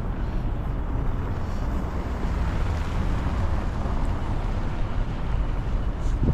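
Blizzard wind buffeting the microphone, a steady rushing noise heaviest in the bass, with a short knock right at the end.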